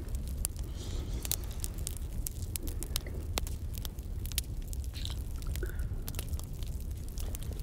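Crackling campfire: irregular sharp pops and crackles over a steady low rumble, with a few soft close-up noises near the microphone.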